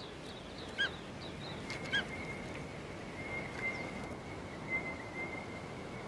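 Quiet outdoor ambience with a bird giving two short chirps about a second apart. A faint steady high tone starts about two seconds in.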